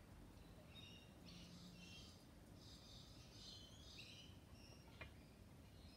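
Near silence, with faint bird chirps in the background and a single faint click near the end.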